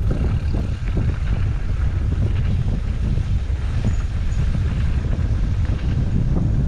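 Wind buffeting the microphone of a camera carried on a moving e-mountain bike: a loud, steady low rumble that comes up suddenly at the start and holds.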